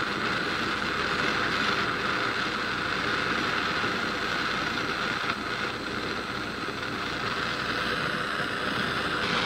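Handheld gas torch burning with a steady hissing rush, its flame played into a plaster mould to melt silver, a little quieter around the middle.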